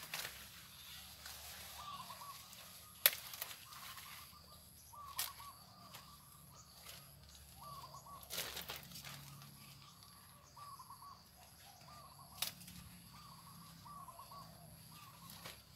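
Birds calling with short, repeated chirps over a steady high-pitched whine, broken by a few sharp clicks and a brief burst of rustling about eight seconds in. No mower motor is running.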